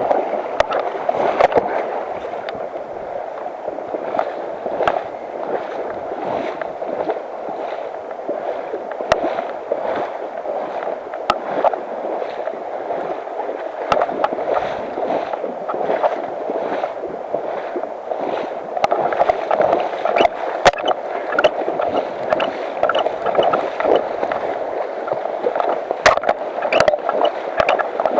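Fast, shallow mountain river rushing over stones close by: a steady water noise with many small splashes and clicks scattered through it.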